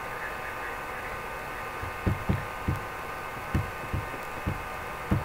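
Steady electrical hum. From about two seconds in, a run of soft, low knocks comes irregularly, one or two a second.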